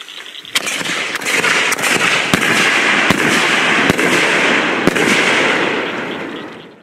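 Ground firework fountains spraying sparks: a loud, steady hiss that starts about half a second in, with a handful of sharp pops and crackles scattered through it, fading away near the end.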